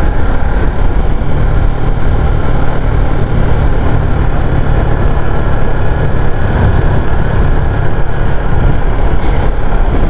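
Motorcycle engine running steadily while riding, with a loud rush of wind over the microphone.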